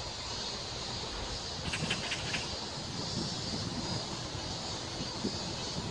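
Steady outdoor background noise, a hiss with a low rumble, with a few short high ticks about two seconds in.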